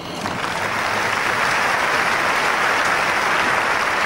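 Tennis crowd applauding at the end of a point. It swells within the first half second and then holds steady.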